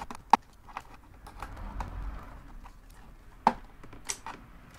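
Scattered small clicks and taps of a tool and fingernail prying a small cable connector loose from behind an iMac's video card, with two sharper clicks, one right at the start and one about three and a half seconds in.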